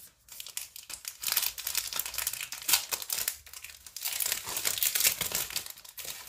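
A chocolate bar being unwrapped: the wrapper crinkling and tearing in a quick, irregular run of crackles.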